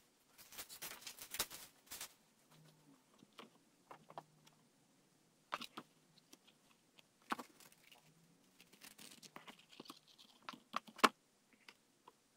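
Paper being handled on a table as a sheet is pressed onto wet acrylic paint and pulled apart for a decalcomania print: rustling at first, then scattered taps and clicks. A sharp click about eleven seconds in is the loudest.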